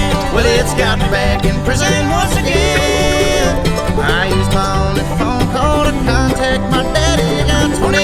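Bluegrass-style country music with a steady beat, an instrumental stretch with no singing.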